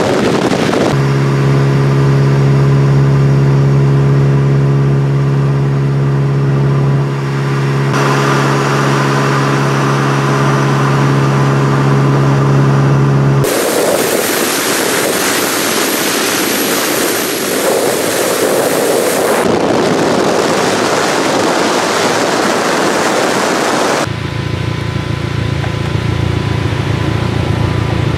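A vehicle engine holding a steady drone at highway cruising speed, which cuts off suddenly about halfway through to loud wind and road rush. Near the end a lower steady engine hum takes over.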